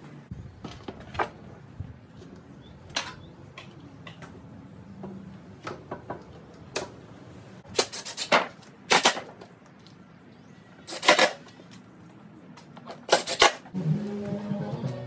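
Cordless drill driving screws into a plywood frame in four short bursts a second or two apart, with light knocks and clicks of clamps and wood before them. Guitar music comes in near the end.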